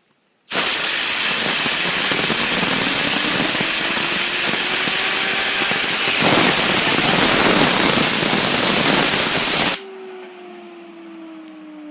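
Compressed air from an air compressor blasting a fidget spinner for about nine seconds, a loud hiss with the spinner's whine rising in pitch underneath as it speeds up. The air then cuts off suddenly and the spinner keeps whirring on its own, its pitch slowly falling as it spins down.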